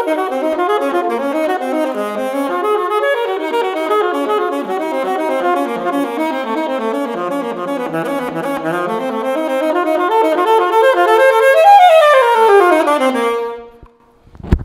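Alto saxophone playing a fast breathing study in unbroken running notes, which dip to its low register around the middle. It closes on a quick falling run, about a second before the end.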